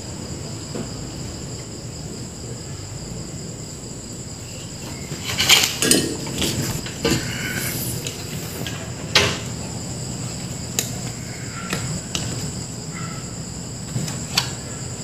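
Hand-tool and circuit-board handling noises from a fuse replacement on an inverter air-conditioner board: pliers and the board knocking and clicking, sharpest about five to six seconds in, around nine seconds and near the end. A steady high-pitched whine runs underneath.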